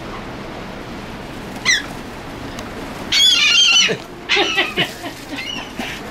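Seagulls calling: one short cry about a second and a half in, then a loud, longer call around three seconds in, followed by a run of shorter cries, over a steady background hiss.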